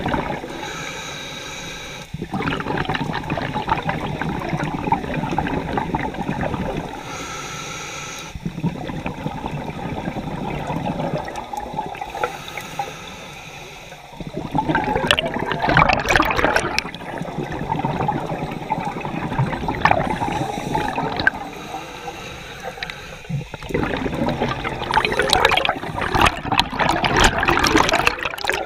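Scuba regulator breathing underwater: long bursts of bubbling and gurgling as the diver exhales, every few seconds, with a short whistling hiss of an inhalation between some of them.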